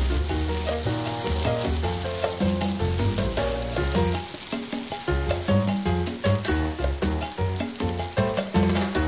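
Tofu slabs shallow-frying in hot cooking oil in a wok: a steady sizzle with many small crackling pops. Background music with a bass line plays underneath.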